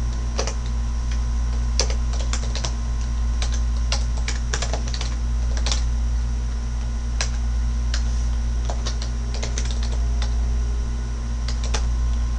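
Computer keyboard keys clicking in irregular runs as a command is typed, over a steady low hum.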